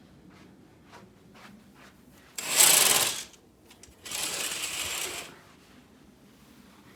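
Two loud bursts of rushing, hissing noise, each about a second long, the first the louder, with faint clicks and ticks before them.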